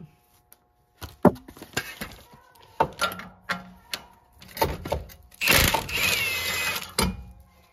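Metal clinks and knocks from tools and exhaust hardware under a car, then a loud grating noise lasting about a second and a half, with a squeal dropping in pitch through it.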